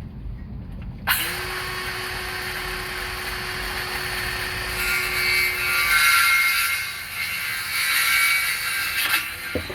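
An electric power tool working on wood starts suddenly about a second in and runs for about eight seconds. It gets louder in two stretches near the middle and end, as if bearing down into the work, then stops, followed by a short knock.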